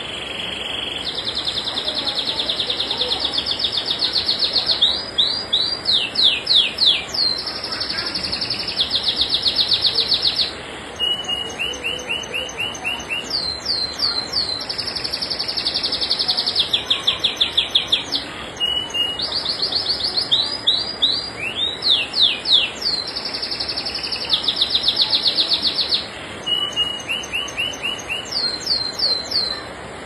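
Domestic canary singing a long, nearly unbroken song: rapid rolling trills alternate with runs of quick down-slurred notes, with hardly a pause for breath.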